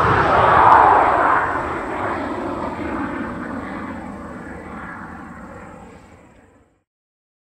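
F-86 Sabre jet passing by: a steady jet engine noise, loudest about a second in, fading away and cutting off to silence near the end.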